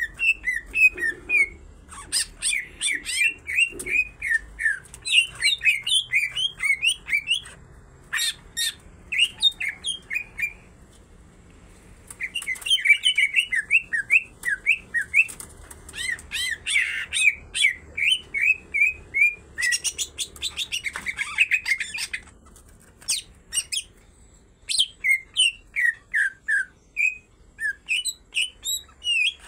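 Cucak ijo (green leafbird) in full, vigorous song: long runs of quick, sharp chirping notes, about five a second, with rattling strokes mixed in. The song breaks off briefly twice, about a third and about four-fifths of the way through.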